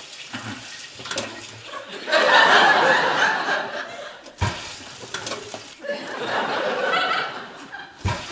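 Sitcom studio audience laughing, in two waves, the first and loudest about two seconds in and a second one a few seconds later.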